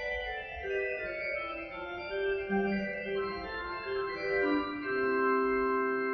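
Organ playing slow sustained chords, closing on a long held final chord from about five seconds in.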